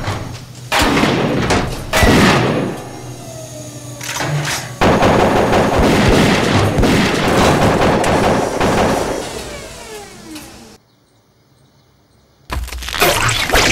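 Sci-fi film sound effects for a walking combat robot: heavy metallic clanks and mechanical noise, then a long loud stretch of dense noise that dies down. After a moment of near silence, a sudden loud blast comes near the end.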